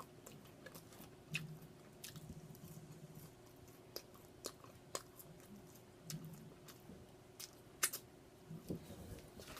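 Close-up chewing and eating sounds of a person eating food: faint, scattered wet mouth clicks and smacks over a low steady hum.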